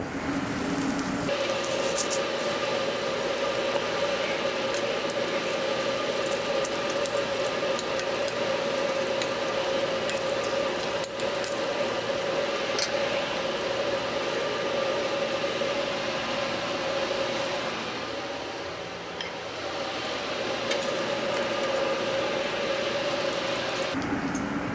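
Sped-up kitchen audio from a commercial flat-top griddle: the ventilation hum is raised to a steady high tone over sizzling pancakes and bacon. Quick spatula clicks and scrapes are heard throughout.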